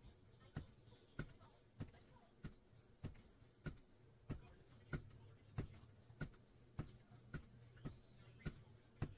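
SportsRoyal twist stair stepper knocking with each step as its pedals are worked up and down: a steady run of short clacks, about one and a half a second.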